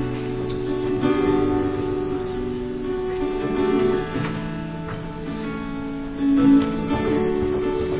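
Acoustic guitar strumming sustained chords, with other instruments holding tones beneath: the instrumental introduction to a worship song, before any singing.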